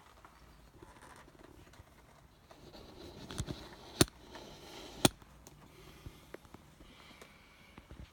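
Faint rustling with three sharp knocks a little over halfway through, the middle two the loudest, then a few light ticks.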